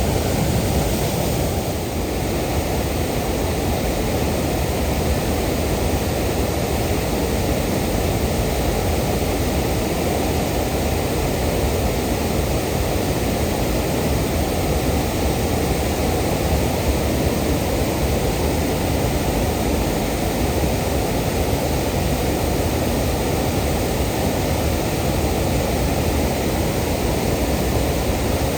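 Waterfall: water pouring steadily, a dense, even rush that is strongest in the low range, with no change throughout.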